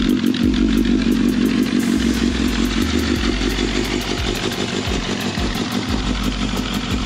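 2006 Suzuki GSX-R1000's inline-four engine idling steadily through a Yoshimura aftermarket exhaust.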